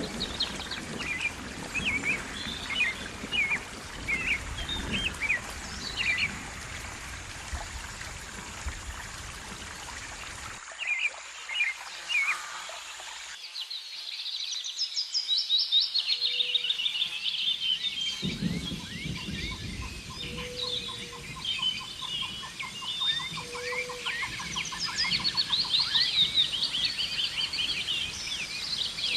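Several songbirds chirping and singing in the open. Partway through the ambience changes, and the later part holds denser song, a rapid even trill and a short low note repeated every few seconds.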